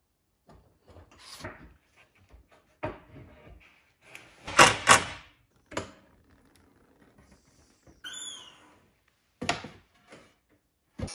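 Hinged plywood out-feed extension table and its wooden folding support being moved and set into place by hand: a series of wooden knocks and thunks, the loudest about halfway through, with a brief squeak a little past the middle.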